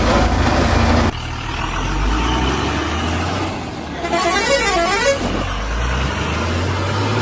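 A heavy vehicle's engine rumbling low, with a wavering horn-like tone sounding for about a second, about four seconds in.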